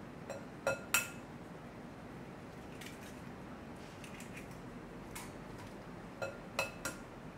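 Eggs tapped against the rim of a glass mixing bowl: three sharp taps with a short glassy ring about a second in, then fainter crackles as the shell is pulled apart, and three more taps near the end as the second egg is cracked.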